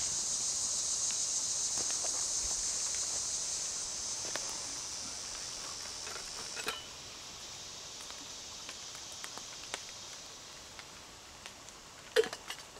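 Insects droning steadily at a high pitch, slowly fading after a few seconds, with a few light clicks and taps now and then.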